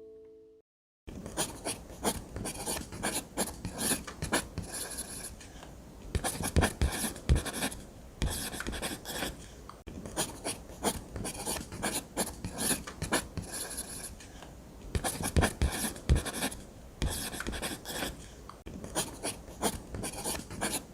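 Drawing on paper: the tip of a drawing tool scratching across the sheet in quick strokes, in irregular runs with short pauses.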